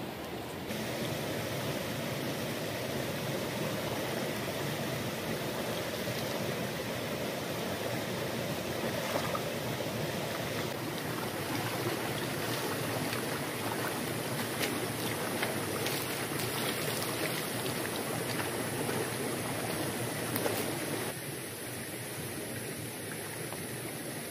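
Shallow, rocky river running over stones: a steady rush of flowing water, with a few light clicks and knocks in the middle part. The water sound drops quieter near the end.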